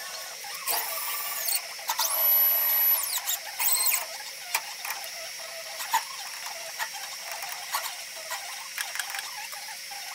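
CNC milling machine's stepper-driven axes jogging to set the drill bit down into an already-drilled hole and re-register the hole pattern. A high whine rises in pitch, holds and falls back, twice in the first four seconds, over a steady machine hum with scattered light clicks.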